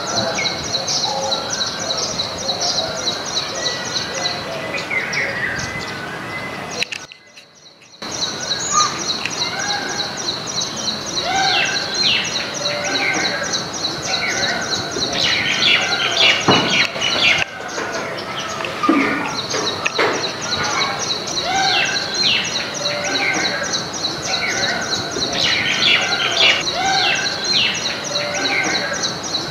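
A flock of small birds, baya weavers among them, chirping and chattering, with many short overlapping calls and a high, rapid trill that comes and goes. The sound drops out for about a second near a quarter of the way in.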